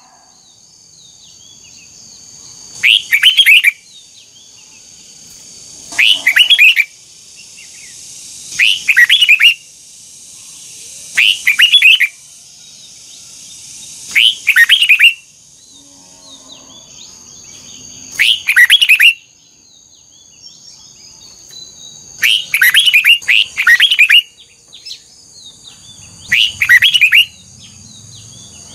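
Red-whiskered bulbul singing: loud, short song phrases of about a second each, repeated roughly every three seconds, about nine in all.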